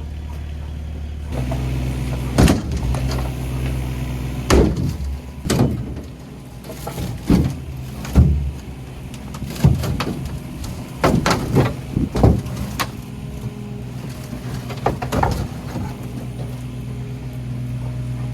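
An engine runs steadily and picks up about a second in, while a dozen or so sharp knocks and clanks sound irregularly over it as the old pool skimmer is worked loose and pulled out.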